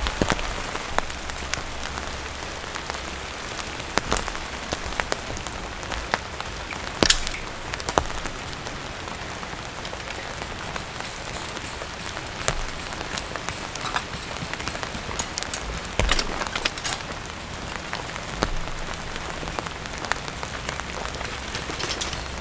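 Cold winter rain falling steadily, with many individual drops landing as sharp, irregular taps on a hard surface.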